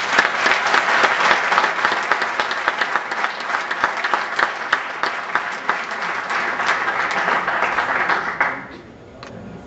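Audience applauding, many hands clapping densely, dying away about eight and a half seconds in.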